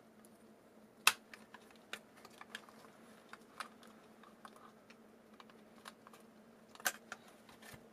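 Light clicks and taps of small electronics being handled: a circuit board, its wiring and a metal case knocking together as the adapter is taken apart. The sharpest click comes about a second in, with another near the end.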